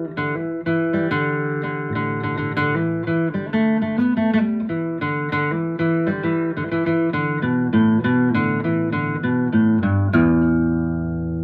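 Intro music: a guitar tune of quick plucked notes, ending about ten seconds in on a chord that rings out and fades.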